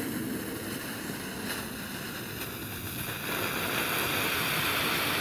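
Cialfir Perro Cagon novelty firework: its fuse burns with a faint hiss and a few small crackles. About three seconds in, the red Bengal flare at its rear lights and keeps up a louder, steady hiss.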